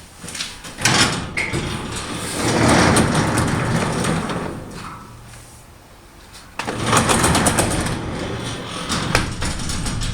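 Up-and-over canopy garage door being worked through its travel twice, the metal door and its spring-balanced pivot gear rumbling and rattling, each pass starting with a sharp knock. This is a balance check after the counterbalance spring tension was eased.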